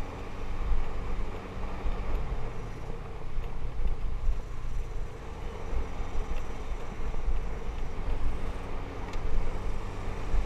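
Motorbike engine running at a steady speed while riding over a dirt track, with wind buffeting the helmet-mounted microphone in gusts.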